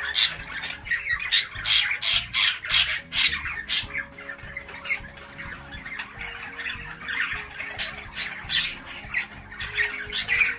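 Budgerigars chattering and squawking. A quick run of loud calls comes in the first few seconds, then softer chatter, with another loud burst near the end.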